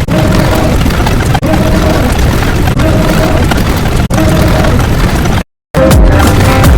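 A loud, noisy sound effect played on a loop, restarting about every second and a third. About five seconds in it cuts out for a split second, and a different sound with steady musical tones starts.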